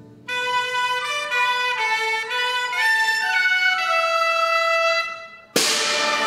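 A solo wind instrument in a Chinese traditional orchestra plays a short phrase of stepping notes that moves lower and fades. About five and a half seconds in, the full orchestra comes back in loudly with a sharp percussive hit.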